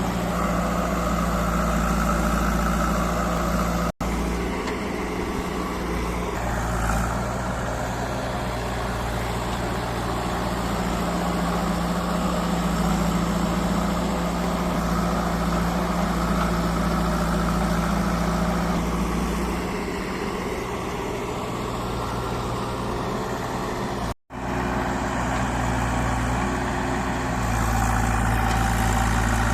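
JCB 3DX backhoe loader's diesel engine running steadily while the machine works, its note shifting a few times with the load. The sound cuts out for an instant twice.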